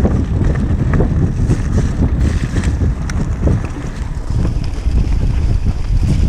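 Wind buffeting the action camera's microphone over the rumble of a Kona Process 153 mountain bike's tyres rolling down stony singletrack, with scattered short knocks and rattles from the bike over the rocks.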